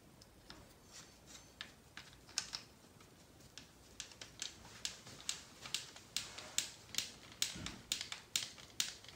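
Faint sharp clicks of a hex driver working small screws into an RC car's plastic transmission case and motor plate, sparse at first, then about three a second from roughly four seconds in.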